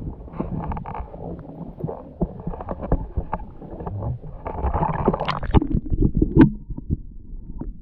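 Lake water sloshing and gurgling around a bass being lowered by hand over the boat's side and released, with the camera dipping close to and under the surface so the water sounds come close and muffled. It gets louder and sloshier about halfway through.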